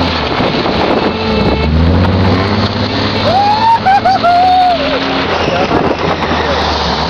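Steady loud vehicle running noise, a low rumble under a broad rushing haze. About halfway through, a single drawn-out, wavering cry rises over it.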